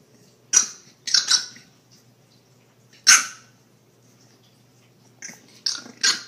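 French bulldog puppy yapping: short, sharp, high barks in three bunches, two or three at first, a single one in the middle and three close together near the end.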